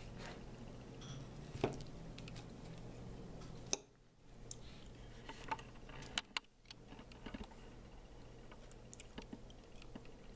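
Scattered soft clicks and knocks over a steady low hum, from the camera being handled and moved, with the level dipping briefly twice.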